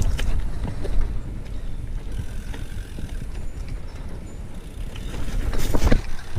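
BMX bike being ridden over pavement: a steady low rumble with a few short knocks, and a louder rattling clatter about five and a half seconds in.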